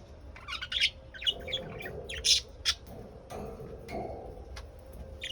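Lovebirds chattering in short, harsh squawks and chirps, thick and fast for the first three seconds, then only a few single calls.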